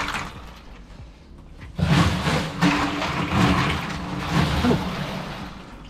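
Crushed ice crunching and shifting in a fish box as a hand grabs an iced tuna by the tail, starting about two seconds in and lasting about three seconds.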